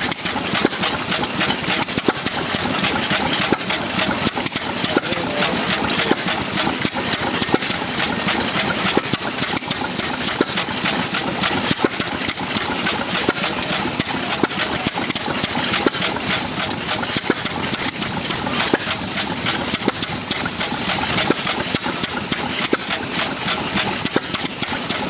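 Ruston Hornsby OK 5½ hp stationary engine running steadily, an even beat of firing strokes with mechanical clatter.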